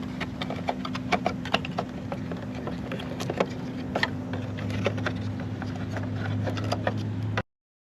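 Scattered plastic clicks and taps as a taillight's blind-spot-sensor bracket and wiring connector are handled and unclipped, over a steady low hum. The sound cuts off abruptly near the end.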